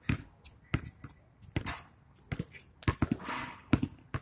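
Basketball bouncing on a hard court as players dribble: an irregular series of sharp thuds, about ten in four seconds.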